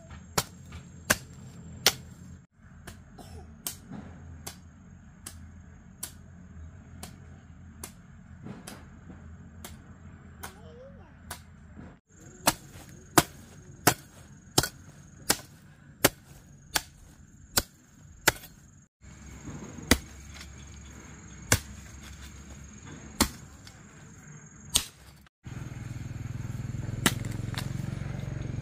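Hand hoe blade striking and chopping into dry, hard soil in a steady rhythm of sharp strokes, about one to two a second, with a few short breaks. Near the end a steady low rumble comes in under the strokes.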